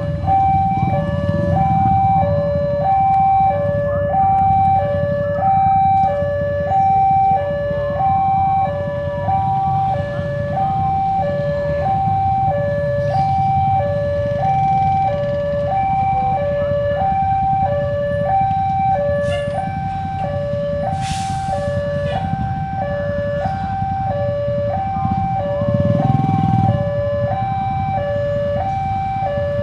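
Railway level-crossing warning alarm sounding a steady two-tone high-low chime, about one cycle every second and a half, signalling that a train is approaching. Under it is a low rumble of road vehicles' engines waiting at the closed crossing, with a short hiss about two-thirds of the way through.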